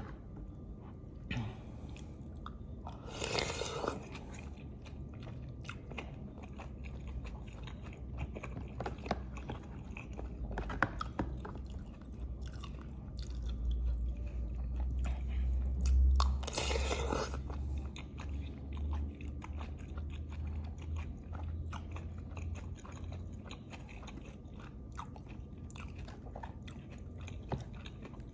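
Close-miked eating: a person chewing and biting into lontong with green chilies, with many small wet mouth clicks. Two louder, longer crunchy bursts come about three seconds in and again about seventeen seconds in.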